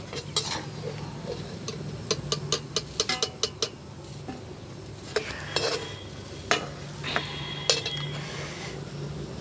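A perforated steel slotted spoon scraping and clinking against a steel kadhai and plate as fried soya chunks are scooped out and tipped onto the plate, over a light sizzle of hot oil. A quick run of clicks comes about two to three seconds in, then separate knocks, a couple of them ringing briefly.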